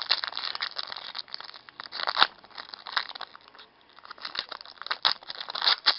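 A trading card pack wrapper being torn open and crinkled by hand, with uneven rustling and a few sharp snaps, the loudest about two seconds in and again near the end.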